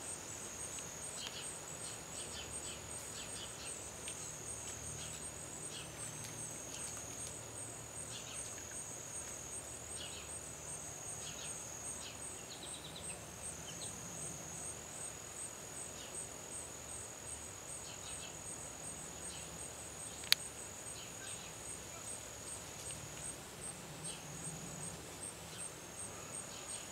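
Insects singing: a steady high pulsing trill over a continuous high drone, with scattered short, faint chirps. One sharp click about twenty seconds in.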